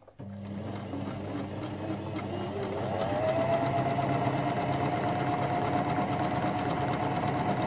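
Janome FD206 sewing machine stitching the narrow reverse zigzag, the third step of a four-step buttonhole. The motor starts just after the beginning, rises in pitch over about three seconds, then runs at a steady speed with a rapid needle clatter.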